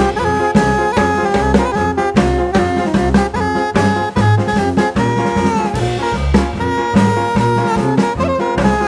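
Background music: upbeat jazz-swing with horns over a steady drum beat.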